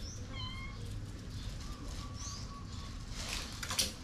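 A small animal's short, high-pitched mewing cry just after the start, then a fainter, longer thin cry, with a burst of scratchy rustling near the end.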